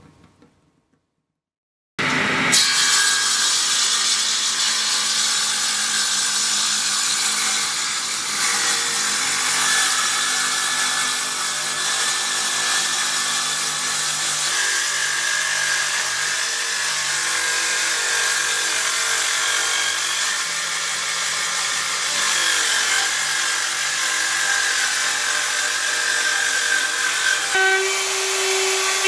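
Table saw cutting a dark hardwood board, a steady loud whine that starts suddenly about two seconds in. Near the end it gives way to a handheld plunge router running with a steady whine.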